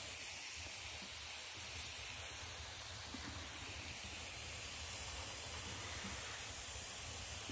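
Mushrooms roasting on a very hot wood-stove top, their juices sizzling steadily as the heat drives the water out of them.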